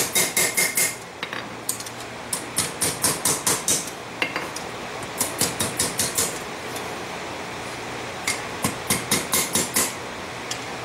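Blacksmith's hand hammer striking a hot railroad spike on the anvil horn in quick runs of blows, about four or five a second, with short pauses between the runs. The smith is truing up the horns of a bull's head forged on the end of the spike.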